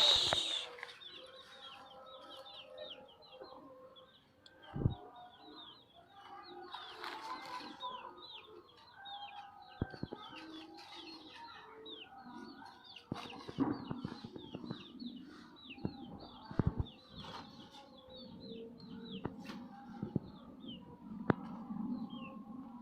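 Chickens foraging: a run of short, high, falling peeps, typical of chicks, goes on throughout, over lower hen clucks and a few sharp taps.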